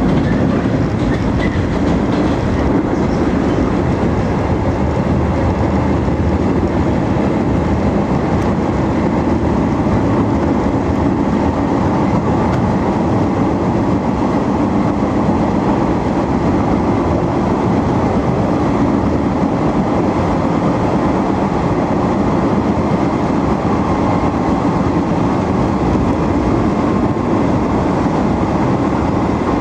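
A Chikuhi Line electric train running steadily at speed, heard from inside the carriage: a continuous rumble of wheels on the rails that holds level throughout.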